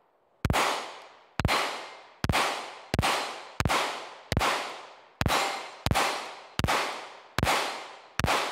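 Taurus PT111 Millennium G2 9mm pistol firing 115-grain steel-cased full metal jacket rounds, eleven shots at a steady pace of a little over one a second, each ringing out with a long echo among the trees. Every round cycles without a failure.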